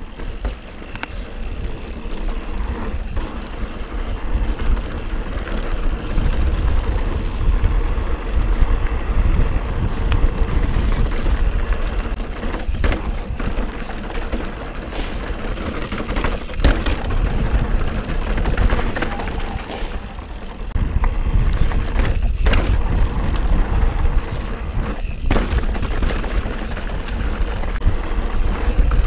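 A mountain bike rolling over a dirt trail: steady tyre and wind noise with a heavy low rumble on the handlebar camera's microphone, and several sharp clacks from the bike jolting over bumps.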